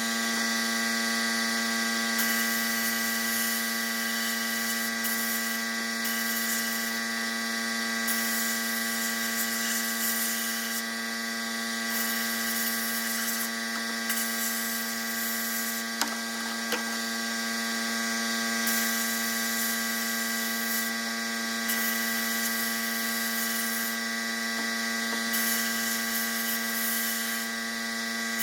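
A small power tool's motor running steadily, with a constant hum and an even hiss.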